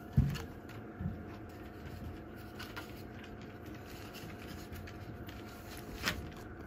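A sharp thump about a fifth of a second in and a smaller knock about a second in, then faint scattered ticks of a small dog's claws on a wooden deck over a steady background hiss.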